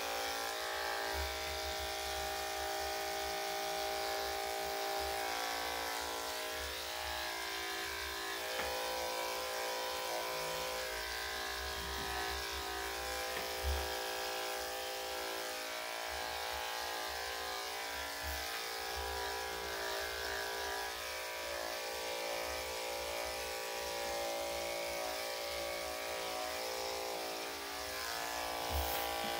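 Corded electric dog-grooming clippers with a #7 blade running with a steady electric hum as they clip a Yorkshire terrier's coat.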